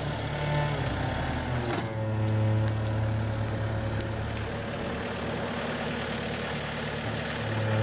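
Bobcat A300 skid-steer loader's diesel engine running steadily under hydraulic load as it lifts a heavy wood slab, its note shifting about two seconds in.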